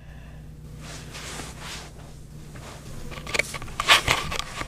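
A faint low hum, then about three seconds in a short cluster of knocks and rustles as things are handled and moved, loudest just before the end.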